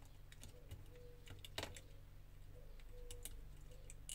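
Faint small clicks and light taps of fingers pressing a phone's charging-port and battery flex connectors into their sockets, with one sharper snap about a second and a half in. A low steady hum runs underneath.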